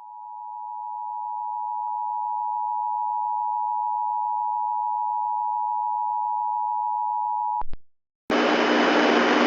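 Emergency Alert System two-tone attention signal, fading in and holding steady for about seven and a half seconds, then cutting off with two clicks. After a short silence, a loud static hiss with a low hum starts near the end.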